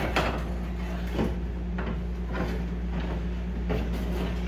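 Window glass from a 1985 Chevrolet C10 door being slid out of its track and lifted out of the door shell, scraping and bumping in a string of short, irregular strokes. A steady low hum runs underneath.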